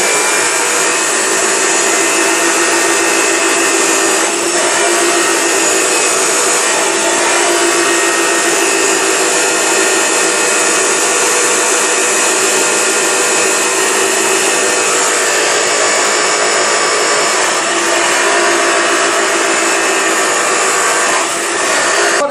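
Loud, steady whirring of a small motor that runs unchanged and cuts off suddenly at the end.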